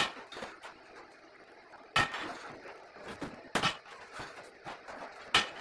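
Four sharp knocks and clatters about a second and a half apart, from hands-on assembly work on the frame of an evaporative cooling pad wall, with a short ring after each.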